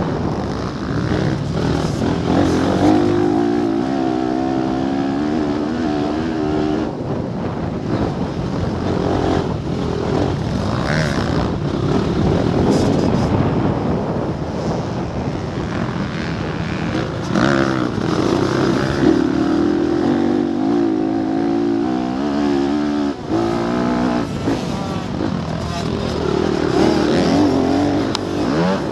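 Motocross dirt bike engine heard from on board, revving up and down over and over as the rider works the throttle and gears round the track.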